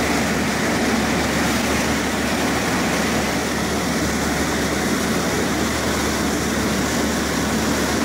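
Motorboat engine running steadily at speed, with the rush of its churning wake and wind.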